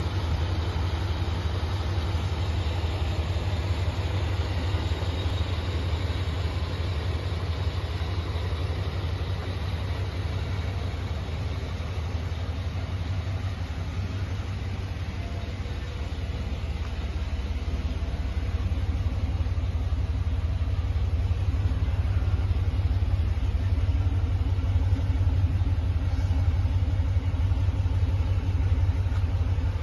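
1992 GMC Vandura van's engine idling: a steady low rumble that grows louder in the second half.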